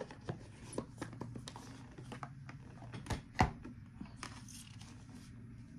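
Irregular light clicks, taps and rustles of tarot card decks being handled, with one sharper click about three and a half seconds in.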